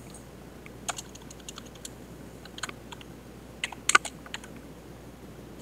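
Computer keyboard being typed on: scattered, irregular key clicks, with a louder cluster of taps about four seconds in.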